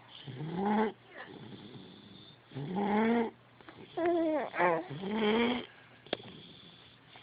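Snoring with a squeaky, whine-like tone: four pitched breaths, most of them rising in pitch, the last two coming back to back.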